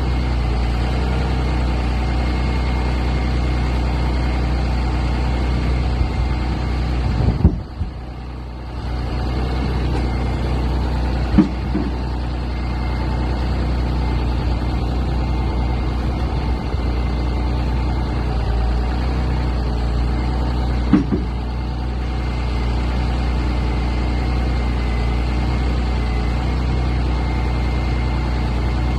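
Heavy diesel engine idling steadily, with a few short knocks. The hum dips briefly about eight seconds in.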